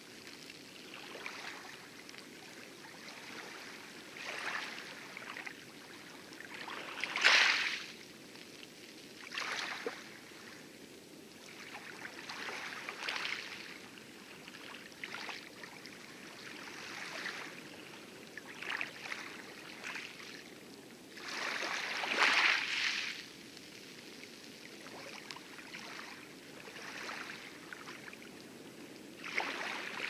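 Wooden oars of a small rowboat dipping and pulling through calm lagoon water, with a splash and swish every two to three seconds and water lapping at the hull. The loudest splashes come about seven and twenty-two seconds in.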